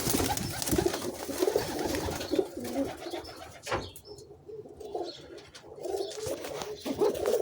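Domestic pigeons cooing in a loft, several low rolling coos overlapping, with some rustling and a single sharp knock a little past halfway.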